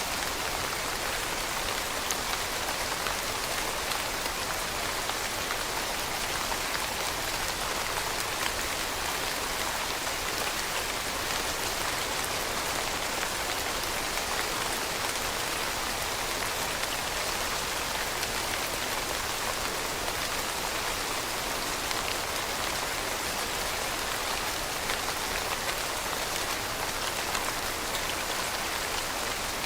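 Steady rain falling on a surface, an even hiss with fine pattering drops.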